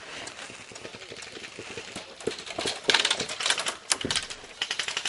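Rapid bursts of airsoft gunfire: a fast run of sharp clicks, about ten a second, starting a little past halfway and coming again in a second burst near the end.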